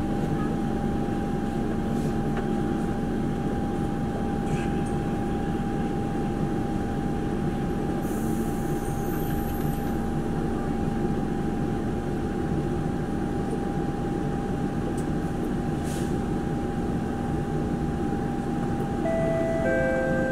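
Steady hum and rumble inside a Singapore MRT train carriage, with a constant tone running through it. About a second before the end, a short run of electronic chime tones begins: the door-closing warning.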